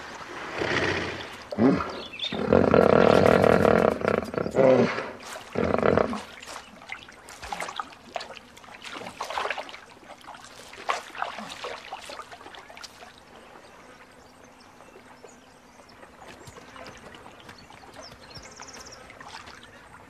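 A large wild animal calling loudly several times in the first six seconds, the longest call from about two to four and a half seconds in, followed by quieter scattered sounds of water.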